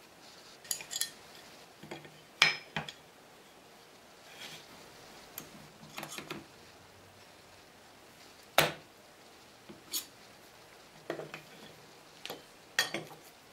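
Scattered clicks and knocks of an aluminium dowelling jig and its metal parts being handled, set down and slid on a wooden board and workbench. The two sharpest knocks come about two and a half and eight and a half seconds in.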